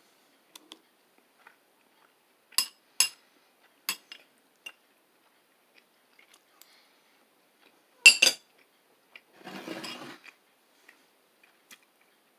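Eating utensil clinking against a dish as food is scooped up: a few sharp separate clinks, the loudest about eight seconds in, followed by a brief scraping sound.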